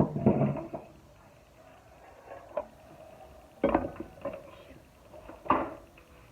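Parts of a vacuum cleaner being handled: a short rustling clatter at the start, then two sharp knocks a couple of seconds apart with a few lighter ticks between. The vacuum's motor is not running.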